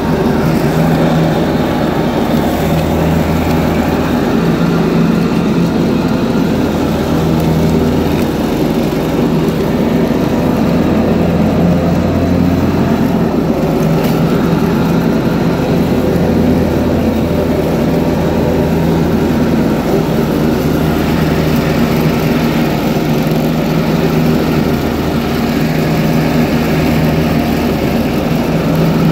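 John Deere 445 garden tractor running steadily while mowing wet, tall grass. Its low drone swells and eases every couple of seconds.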